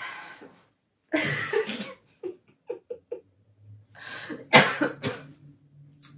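A person coughing in a few short, harsh bouts, the sharpest about four and a half seconds in, with softer throat sounds between.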